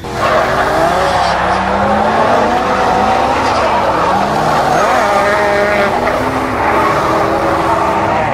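Race cars drifting: engines revving up and down as the tyres skid and squeal.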